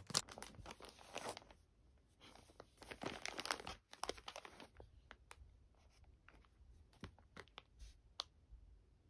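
Packaging being handled: crinkling and rustling in two spells over the first few seconds, then scattered small clicks and taps.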